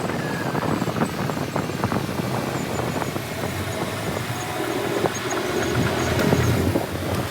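Heavy earthmoving machinery at work: a diesel engine running under load, with frequent metallic clanks and knocks throughout. The engine note rises and falls about five seconds in.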